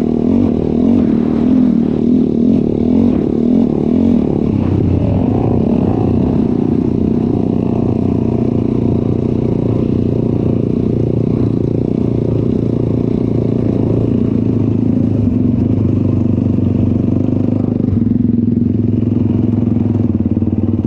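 ATV engine running, its pitch rising and falling for the first few seconds, then holding steady.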